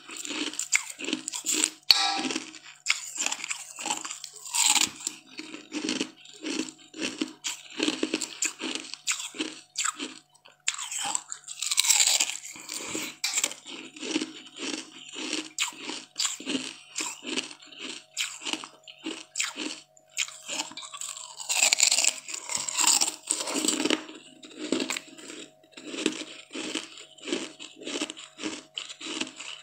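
Close-up eating sounds of a person biting and chewing a crisp green leaf: wet, crunchy chewing at about two chews a second, with louder crunching bites every several seconds.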